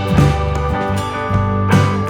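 Background music: a guitar-led band track with bass and occasional drum hits.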